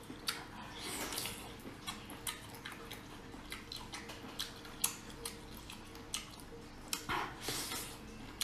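Wet eating and handling sounds of a large spicy braised octopus pulled at by hand and chewed: scattered small wet clicks, with two longer soft squishy rustles, one about a second in and one near the end.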